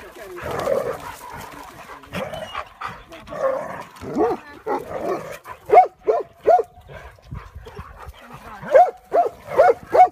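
Dogs, Hungarian vizslas among them, barking and yipping in rough play. Short, sharp barks come in quick runs: three about six seconds in and four or five more near the end.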